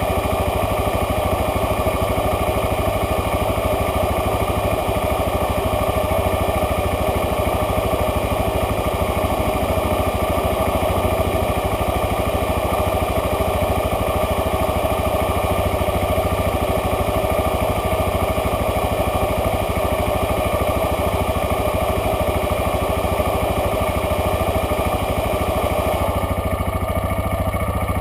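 An off-road vehicle's engine idling steadily while the vehicle stands still.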